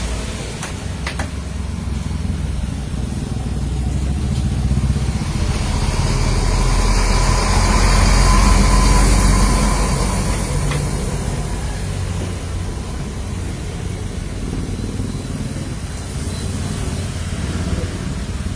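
A motor vehicle's engine rumbling steadily, growing louder towards the middle and then easing off, as a vehicle passing close by does. A few faint clicks come near the start.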